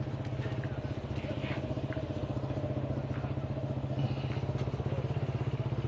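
An engine idling close by: a steady low rumble with rapid, even pulsing.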